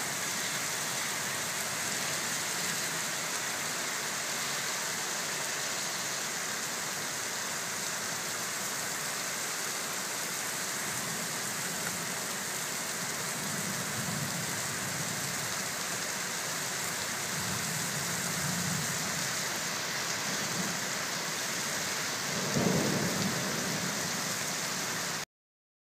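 Heavy rain pouring steadily onto pavement during a thunderstorm. Low rumbles of thunder come in around the middle, and a louder clap of thunder follows a few seconds before the end. The sound then cuts off suddenly.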